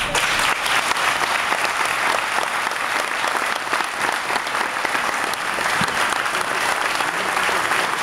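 Large audience applauding steadily, the clapping starting abruptly as the speech ends.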